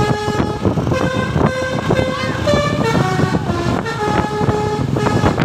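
Indonesian 'telolet' bus horn: a set of multi-tone air horns playing a quick tune of short held notes that step up and down in pitch, over loud background noise.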